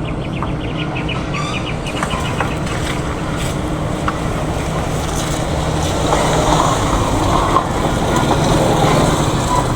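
Steady low engine drone with a continuous hum, getting louder about six seconds in, with a quick run of ticks in the first two seconds.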